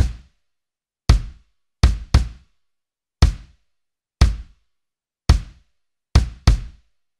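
Solo 22-inch bass drum (kick drum) played with the foot pedal. There are nine short single strikes, mostly about a second apart, with two quick double strokes, and each hit dies away fast.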